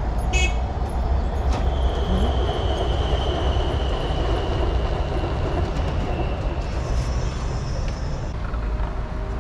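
Loud, steady rumble of passing road traffic, with a thin high squeal that holds for several seconds from about two seconds in and slowly falls.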